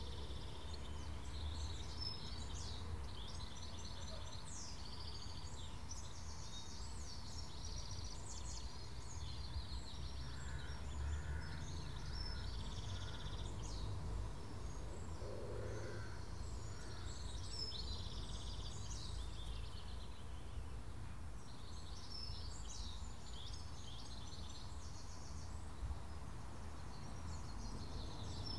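Garden birds chirping and trilling on and off over a steady low rumble of background noise.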